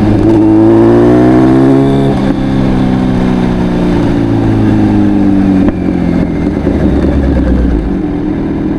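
Kawasaki Z900's inline-four engine through an Akrapovic full exhaust, rising in pitch for about two seconds, then slowly falling. A sharp click comes about six seconds in, after which the engine is a little quieter.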